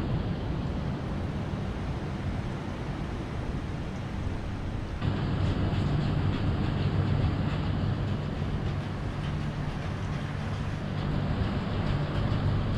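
A steady low rumble of background noise, becoming a little louder about five seconds in.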